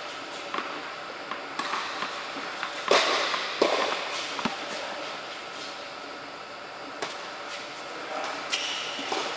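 Tennis balls struck by rackets and bouncing on an indoor court, a series of sharp pops echoing in a large hall; the two loudest come about three seconds in, under a second apart, with another near seven seconds.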